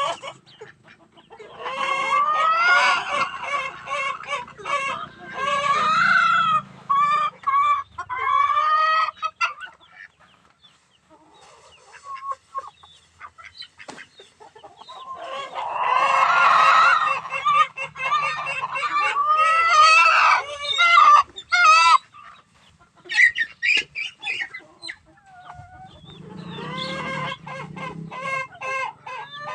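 Chickens and a rooster clucking and squawking in several overlapping bursts, with the rooster crowing among them; the birds fall quieter for a few seconds in the middle.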